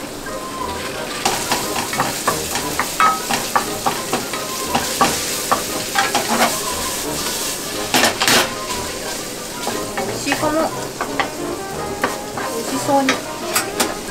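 Crumbled mince sizzling in a nonstick frying pan while a wooden spatula stirs it, with a steady frying hiss and many short scrapes and clacks of the spatula against the pan.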